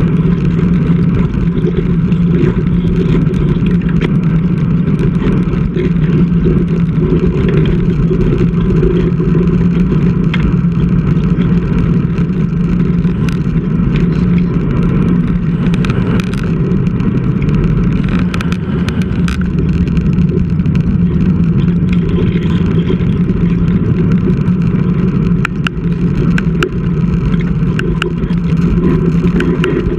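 Steady wind and road rumble on a bike-mounted GoPro while riding a road bike, with a constant low hum and scattered small clicks and rattles, most of them in the second half.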